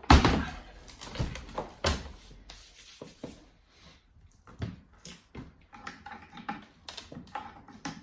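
Workbench handling noises on an electric unicycle and its pedal parts: a heavy knock at the start, a second knock about two seconds in, then scattered light clicks and rubbing.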